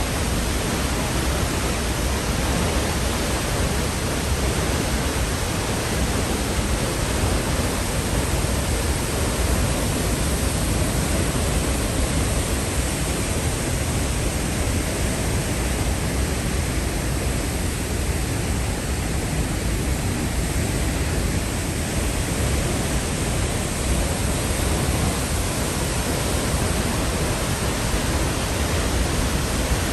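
Peričnik waterfall in spate after heavy rain: a loud, steady roar of falling water.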